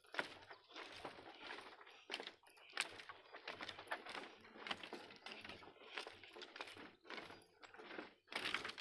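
Footsteps crossing a bamboo footbridge, the loose bamboo poles clicking and rattling underfoot in an irregular run of small knocks.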